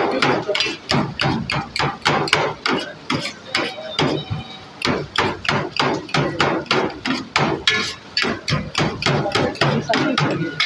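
Metal spatula chopping shaved chicken and vegetables on a steel tray: a fast, steady clanking of blade on metal at about four to five strokes a second, with a short pause a little after four seconds in.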